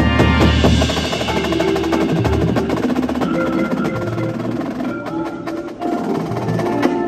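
Drum and bugle corps front ensemble playing a percussion passage: marimbas and other mallet keyboards sounding sustained, ringing pitched notes over repeated low drum hits.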